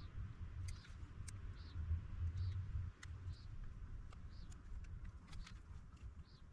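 Scattered light clicks and taps of small-scale bench work over a steady low rumble, with a soft high chirp repeating about once every second.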